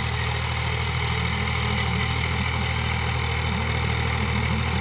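Powertrac ALT 4000 tractor's diesel engine running steadily as it pulls a cultivator across a field.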